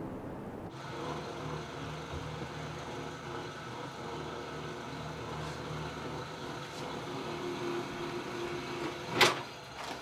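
A soba-dough rolling machine runs steadily with a low hum as it presses buckwheat dough into a sheet between its rollers. A single sharp knock comes near the end.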